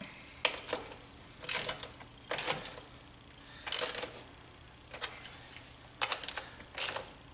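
Ratchet wrench clicking in several short bursts as the cable nuts on golf cart battery terminals are snugged down.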